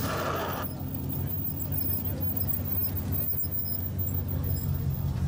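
Engine of a slammed Dodge Ram pickup running steadily at low revs as the truck rolls slowly past close by.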